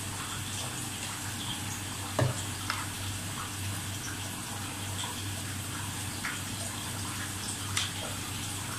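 Watery sauce of asam boi, lime juice and fish sauce simmering in a wok, a steady bubbling, with a few light knocks about two seconds in and near the end.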